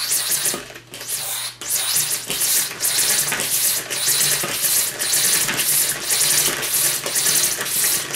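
Homemade model piston engine running on pressurised air from a pump: a continuous loud hiss of air escaping through its valve and cylinder, surging in a regular rhythm about twice a second.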